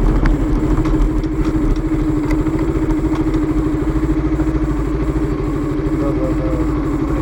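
KTM motorcycle engine running at a steady pitch while the bike rides along, its exhaust giving a fast, even pulsing note.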